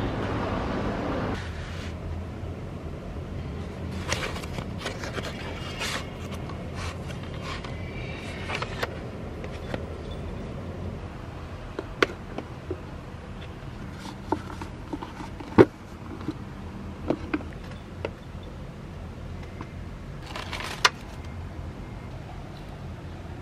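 Wind blowing on the microphone for about the first second, then cutting off. After that come small handling sounds of desk work: scattered sharp clicks and taps, rustles, and a plastic zip-lock bag crinkling near the end.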